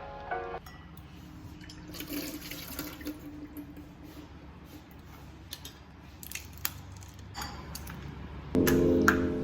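Water running from a tap into a sink, a steady splashing with a few light clicks and knocks. Background music briefly at the start and back again near the end.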